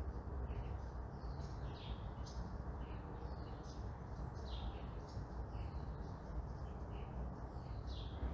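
Small songbirds chirping again and again in quick, sliding notes over a steady low background rumble, like distant traffic.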